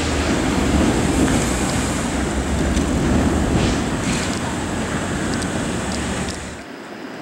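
City street traffic: cars and an SUV driving past close by on a street with streetcar tracks, a steady rumble that drops away abruptly near the end.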